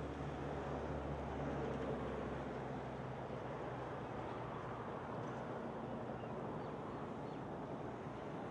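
Steady outdoor background noise with a low, even hum underneath.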